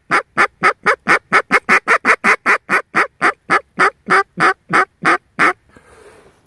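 Rapid, evenly spaced series of loud duck quacks, about four a second, stopping suddenly about five and a half seconds in.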